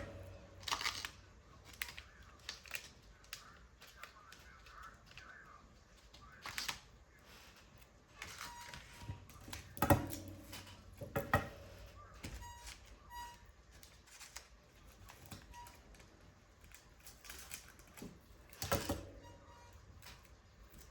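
Paper being cut with scissors and handled: irregular short snips, rustles and taps, the loudest a little before and after halfway and again near the end.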